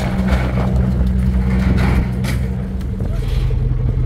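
A heavy engine running steadily at idle, with a few short clatters over it.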